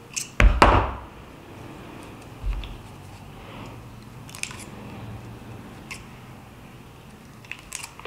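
Steel pliers and coiled heating-element wire clicking and knocking as the strands are gripped and twisted together by hand. There is a loud clatter of knocks about half a second in, a duller thump a couple of seconds later, then a few faint ticks.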